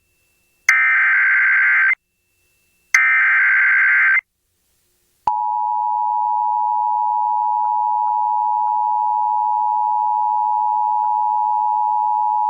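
Emergency Alert System broadcast tones: the last two of the three SAME header data bursts, each a harsh buzzy squawk about a second and a quarter long with a one-second gap, then about five seconds in the steady two-tone EAS attention signal starts and holds.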